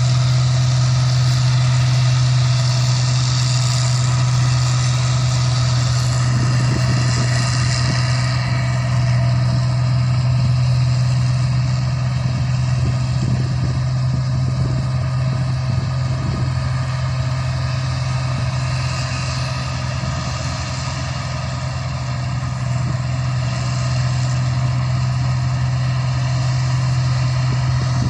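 Rice combine harvester's engine running steadily, a strong even hum with a layered mechanical drone above it.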